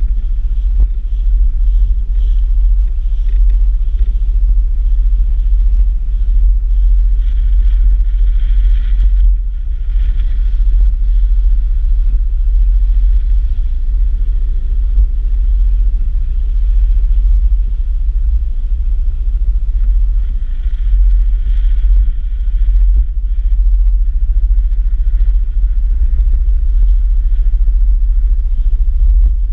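Strong gusting wind buffeting the microphone: a loud low rumble that swells and dips throughout.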